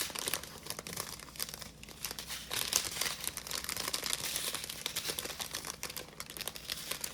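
Small plastic bags of diamond-painting drills crinkling as they are handled, an irregular crackling that goes on throughout.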